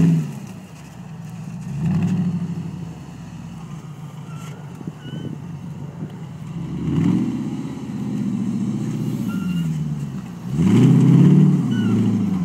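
Off-road trial buggy's engine revving in repeated bursts as it crawls over rough ground, the pitch rising and falling each time: one burst about two seconds in, a longer one from about seven seconds, and the loudest near eleven seconds.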